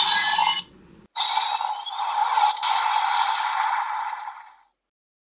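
Kamen Rider Decadriver-style henshin sound effect: shimmering electronic tones with sweeping pitch glides. It breaks off just before a second in, starts again a moment later and fades out before the end.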